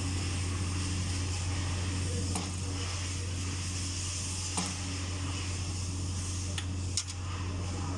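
A steady low hum with four sharp clicks of metal parts and tools being handled during work on a hydraulic travel motor.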